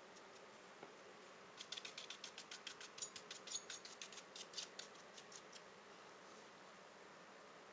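A quick run of light, sharp clicks, about eight to ten a second, starting about one and a half seconds in and stopping about four seconds later, over a faint steady hiss.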